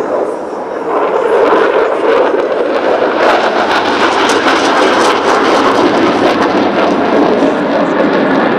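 Loud jet noise from a Dassault Rafale M fighter, a steady rush that turns crackly from about three seconds in.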